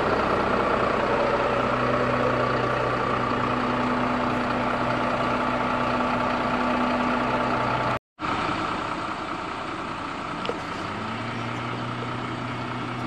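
Large off-road tour truck's engine running with a steady low hum. The sound cuts out for a moment about eight seconds in and comes back a little quieter, and a few seconds later the engine's hum rises slightly in pitch.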